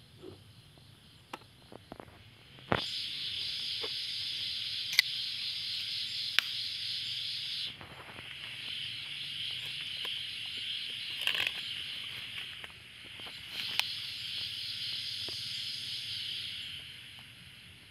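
A high, steady insect trill that starts abruptly about three seconds in, breaks off briefly near the middle, dips once and stops shortly before the end. Scattered sharp clicks and knocks sound over it.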